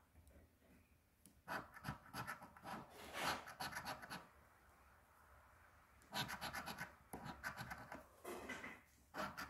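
A coin scratching the coating off a scratch-off lottery ticket. It goes in short runs of quick, rasping strokes, with a pause of about two seconds midway.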